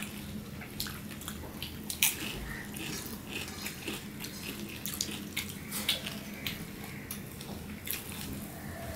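Close-up eating sounds: fingers mixing rice and fish curry on plates, with wet chewing and lip smacks. These come as many short, moist clicks at an irregular pace, with one sharper click about two seconds in.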